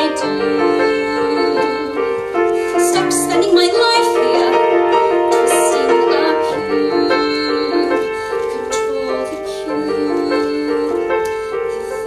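Piano playing a musical-theatre accompaniment of held chords that change every second or so.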